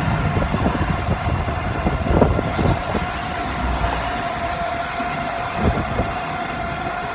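Motorized tricycle running at a steady speed along a road, its motor holding one steady hum, with wind rumbling on the microphone and a few small bumps.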